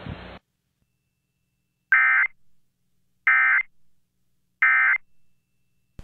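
Three short bursts of NOAA Weather Radio SAME digital data tones, the EAS end-of-message (NNNN) code that closes a tornado warning broadcast. Each burst is about a third of a second long and they come about 1.3 s apart, after a stretch of radio hiss that cuts off about half a second in.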